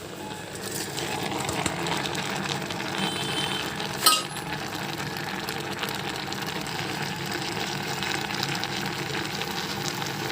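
Steady background hiss with a single sharp clink, like a metal utensil or vessel being knocked, about four seconds in.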